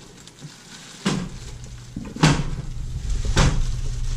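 Three sharp knocks about a second apart as the skillet's electric base is handled and lifted out of its plastic packaging, with a low steady hum coming in at the first knock.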